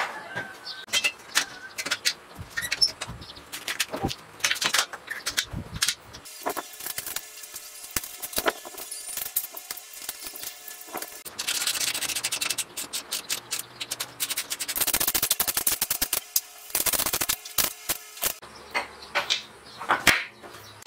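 Hand tools working on a steel frame and its bolts: scattered metal clicks and knocks, a few seconds of rapid ratchet-like clicking about a third of the way in, and later bursts of rubbing and scraping.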